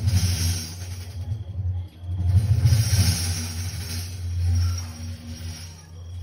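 Large frame drum with metal jingles (tamburello) played in a fast roll: a deep, pulsing drum tone with the jingles shimmering in two swells, near the start and again from about two to four seconds in.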